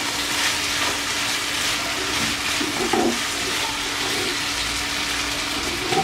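Chicken pieces sizzling in mustard oil and spice paste in a frying pan, a steady frying hiss: the cooking water has boiled away and the chicken is now frying in the oil.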